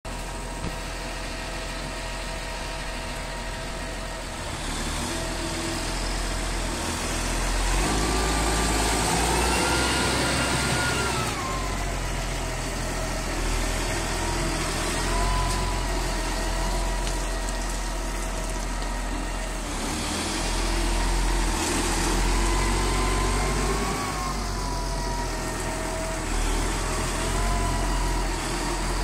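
McCormick MTX185 tractor's diesel engine running, revving up about eight seconds in and settling back a few seconds later, then rising and falling again more gently past the twenty-second mark.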